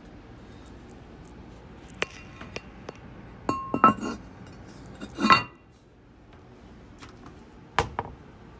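Porcelain toilet tank lid knocking and clinking against the vitreous china tank as it is handled: a few sharp, ringing clinks, the loudest a little past halfway, with two more near the end.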